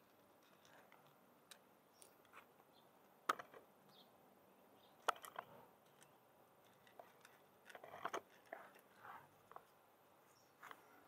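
A cat crunching dry kibble: faint, irregular sharp crunches, the loudest about three and five seconds in, with a quick cluster around eight seconds.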